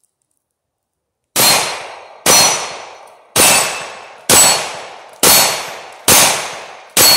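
Semi-automatic pistol fired seven times in steady succession, about one shot a second, each shot ringing out for most of a second; the shooter is emptying the last rounds from the magazine.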